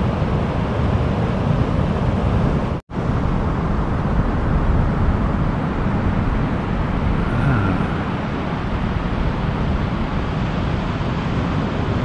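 Steady rumbling noise of wind and breaking surf at the shore, with no clear engine note, cutting out for an instant about three seconds in.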